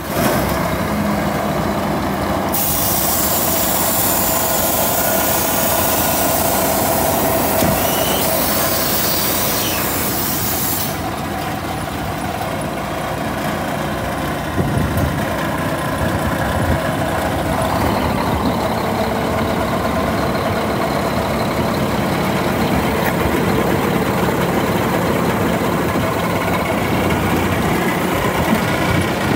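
Scania P340 tipper truck's diesel engine running steadily at idle. A long, loud hiss runs over it from about two seconds in until about eleven seconds. Later the engine note rises a little as the hydraulic cylinder lifts the tipper body.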